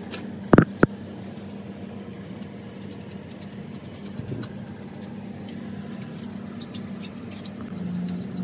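Car engine idling steadily with a low hum. Two sharp knocks come close together just under a second in, and faint light ticks are scattered through the rest.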